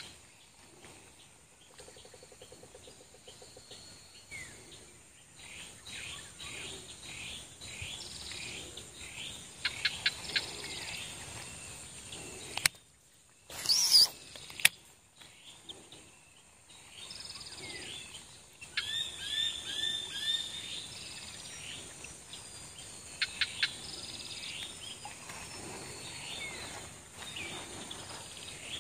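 Swamp ambience: wild birds chirping and calling in short repeated phrases over a steady high insect buzz, with one brief loud rushing noise about halfway through.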